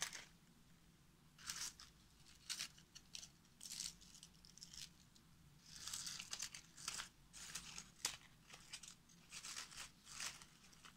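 Faint crinkling and rustling of dry, papery physalis husks handled by fingers, coming in short irregular bursts.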